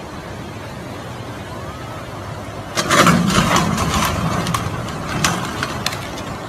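Floodwater rushing steadily. About three seconds in comes a sudden burst of loud cracking and crashing as a wooden bridge breaks apart in the current, followed by a few more snaps a couple of seconds later.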